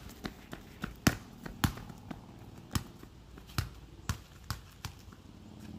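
A soccer ball bouncing on a concrete driveway: a series of sharp, unevenly spaced thumps that grow fainter as the ball moves away.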